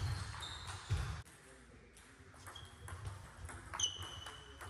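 Table tennis rally in a large hall: the celluloid ball clicks off the bats and the table, with short high squeaks and low thuds from the players' shoes on the floor.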